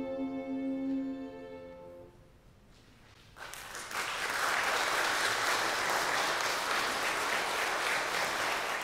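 Violin and euphonium holding a final chord that dies away over about two seconds. After a short hush, audience applause starts about three and a half seconds in and keeps going.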